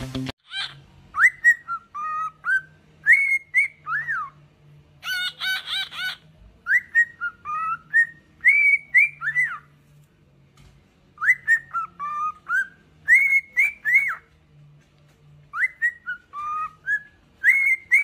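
Pet cockatiel whistling a short tune of rising and falling notes, repeating the same phrase about four times, with a harsher, buzzier call about five seconds in.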